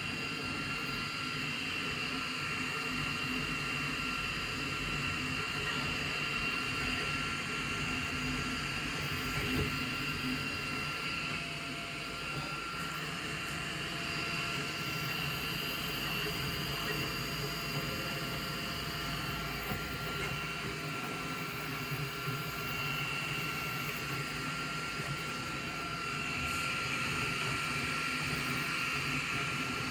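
3D printer running: a steady whirring hum with a constant high-pitched whine over it.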